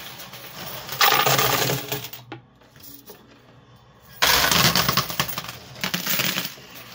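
Quarters clattering in a coin pusher machine: coins dropping and jangling onto the metal playfield and sliding shelf. A loud spell of clatter comes about a second in, a quieter lull follows, and another loud spell starts about four seconds in.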